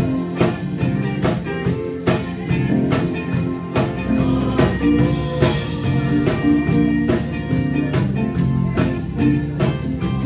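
Live church band playing instrumental music: electric bass guitar, electric guitar and a drum kit keeping a steady beat.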